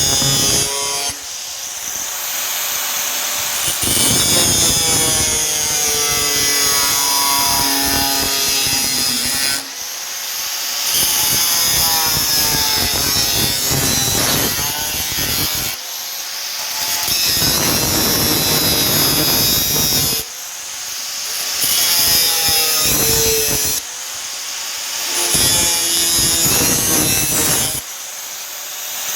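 A power cutting tool slicing through the door's rusted sheet steel. It runs in about six spells with short pauses between them, its pitch sagging and wandering as the blade bites into the metal.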